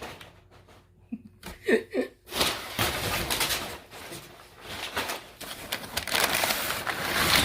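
Packing material and cardboard rustling and crinkling as a Halloween animatronic figure is unpacked from its box, in long noisy stretches. About a second and a half in there is a short, pitched, cooing vocal sound.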